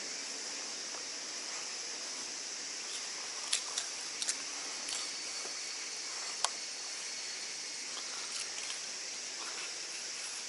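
A steady, high-pitched summer insect chorus, with a few short, sharp clicks about three to six seconds in, the sharpest around six seconds.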